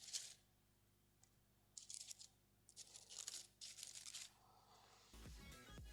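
Dry leaves and grass crunched and rustled in short bursts, a foley recording made to stand in for a mouse's footsteps. There are four or five crackly bursts about a second apart, and music comes in near the end.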